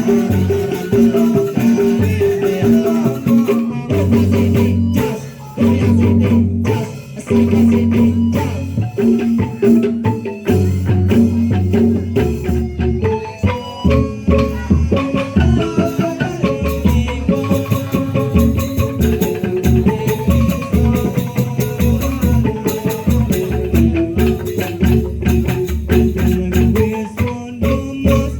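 Instrumental percussion music: tuned mallet-struck percussion with shaker-like rattling over sustained low notes, turning into a busier run of quick strokes about twelve seconds in.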